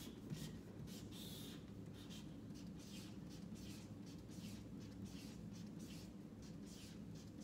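Marker scratching on paper, drawing small circles one after another in a quick run of short, faint strokes, about three a second.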